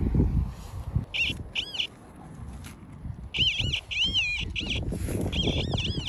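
Metal detector giving a series of short warbling beeps, each rising and falling in pitch, in groups over a few seconds as the coil is swept over a target.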